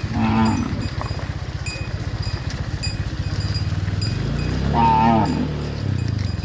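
A small engine, like a motorbike's, running steadily with an even low pulse. Two short calls sound over it: a brief one right at the start and a longer, louder one about five seconds in.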